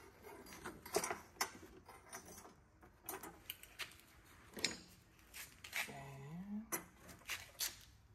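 Metal tools and a steel rod clinking and knocking against each other and the wooden workbench as they are handled: irregular sharp clicks and taps.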